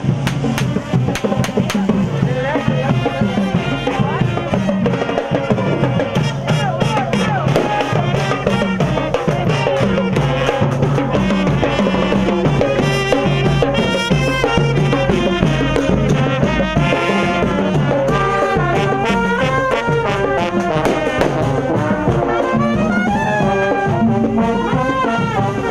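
Marching band playing a lively tune: brass with trumpet carrying the melody over a steady beat of snare and bass drums.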